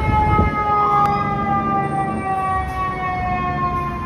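Fire tanker siren wailing over the low rumble of truck engines and highway traffic. The siren's tone climbs in pitch about a second in, then slowly falls.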